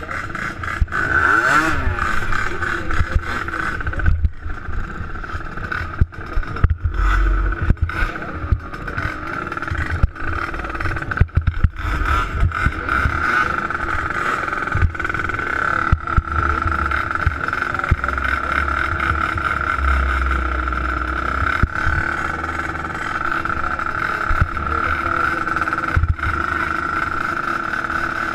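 Small 50cc youth ATV engines idling together at the start line, a steady drone, broken by frequent short knocks and thumps.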